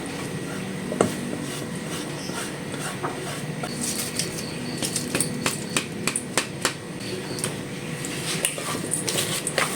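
Kitchen clatter: a run of short knocks and clinks from utensils and cookware. The loudest knock comes about a second in, and the knocks come thickest between about four and seven seconds.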